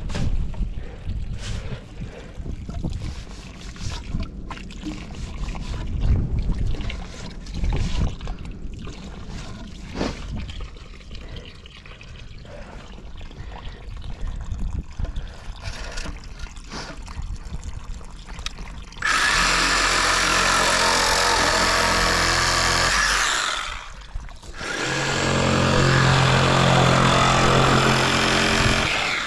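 Shovel scraping and chopping in wet, muddy soil, with wind buffeting the microphone. About 19 seconds in, a cordless reciprocating saw starts cutting PVC pipe and runs steadily for about four seconds, stops briefly, then cuts again for about four seconds more.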